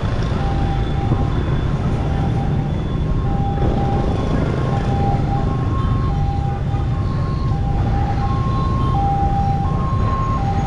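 Wind buffeting the microphone as a steady low rumble. Behind it, a two-note electronic tone alternates high and low, repeating about once a second.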